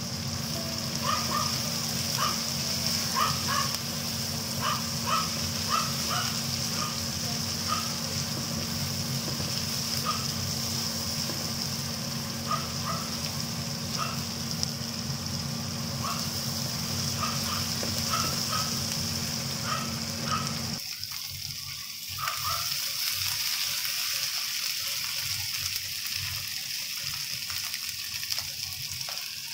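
Sliced green chilies, onion and garlic sizzling in oil in a nonstick wok, with frequent light scrapes and taps of a plastic spatula against the pan over a steady low hum. About two-thirds through, the hum cuts out and a quieter sizzle of the chilies frying with chicken livers goes on.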